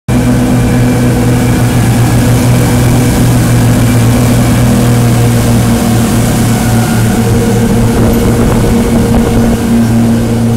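Motorboat engine running steadily at cruising speed, a loud, even drone, over the rush of wind and water as the hull moves.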